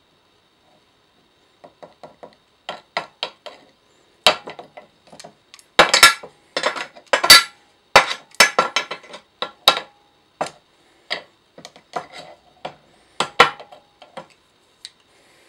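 Small metal tools and parts clinking and tapping on a work surface in an irregular run of sharp knocks, loudest about six to seven seconds in.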